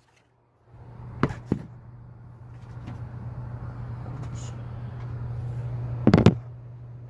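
Two sharp clicks, then a loud clattering knock about six seconds in, from hands working under the hood of a pickup truck, over a steady low hum.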